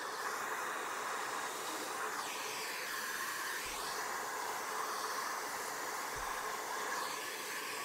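Vacuum cleaner running at reduced power, its nozzle sucking dust out of a laptop's cooling fan and heat-sink outlet; a steady rushing noise whose tone shifts briefly a couple of seconds in.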